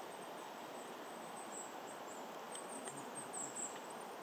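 Faint conifer-forest ambience: a steady low hiss, with a few very high, thin calls of small birds from about two and a half seconds in.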